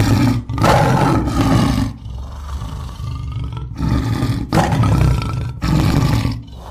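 Tiger roaring repeatedly as a dubbed sound effect: several loud roars with quieter stretches between them.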